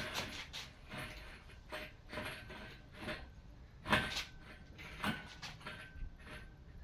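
Irregular mechanical clicks, knocks and creaks from the lifting gear and the hanging engine as it is hoisted clear of the car, with one louder knock about four seconds in.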